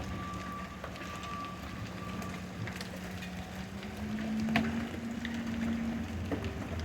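Hailstones striking hard surfaces in scattered sharp clicks, the loudest about four and a half seconds in. Under them a vehicle engine hums steadily, rising a little in pitch about four seconds in, and a reversing beeper sounds for the first couple of seconds.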